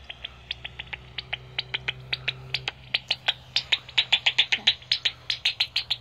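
Pipistrelle bat echolocation calls through a Magenta heterodyne bat detector: a run of dry clicks, sparse at first, then quickening to about ten a second and getting louder from about three seconds in.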